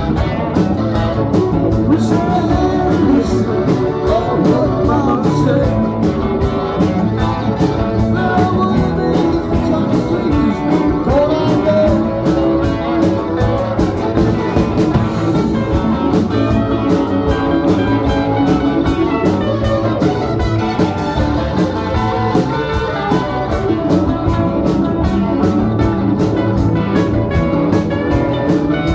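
Live rock band playing a blues-rock song: electric guitars, electric bass, keyboard and drum kit, with a steady drum beat throughout.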